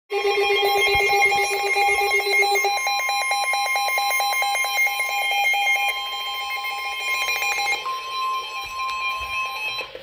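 Midland NOAA weather radio sounding its alert alarm for a severe thunderstorm warning: a loud, rapidly pulsing electronic tone that settles into a steadier single tone about eight seconds in.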